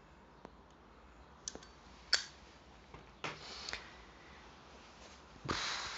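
Faint clicks of a flip-top lighter being worked while a tobacco pipe is lit, the sharpest about two seconds in. Then come a short breathy puff and, about five and a half seconds in, a longer breath blown out.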